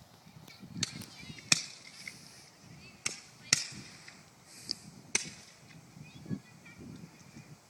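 Fireworks going off: five or so sharp bangs at irregular intervals, with faint crackling between.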